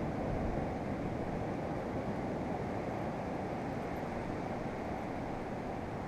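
Steady rushing noise of wind and surf, with some low wind rumble on the microphone.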